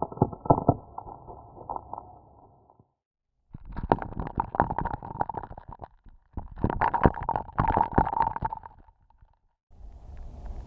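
Ice cracking and crackling underwater, heard through a hydrophone: dense runs of sharp clicks and pops in several separate takes with brief silences between them. The last take, near the end, adds a steady low rumble.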